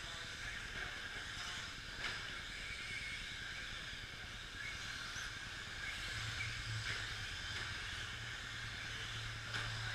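Radio-controlled electric 2WD short course trucks racing on a dirt track: a steady hiss of motor whine and tyre noise, with a few sharp knocks of the trucks landing or hitting the track.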